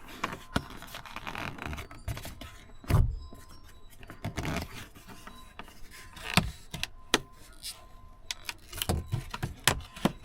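Irregular clicks, taps and knocks of hands working a plastic window deflector into a truck door's window channel, the loudest knocks about three seconds in and a little past six seconds.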